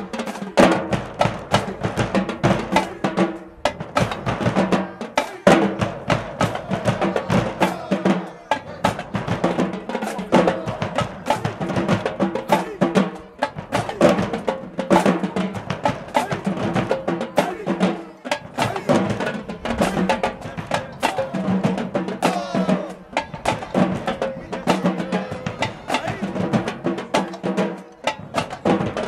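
Marching band drumline playing a fast, continuous cadence on snare and bass drums, in phrases with brief breaks every few seconds.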